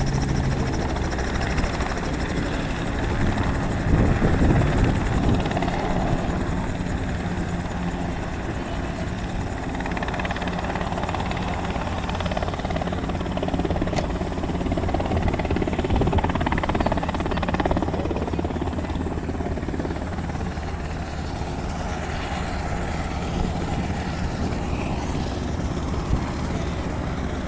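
Helicopter running with a steady rotor beat and engine noise, swelling briefly about four seconds in.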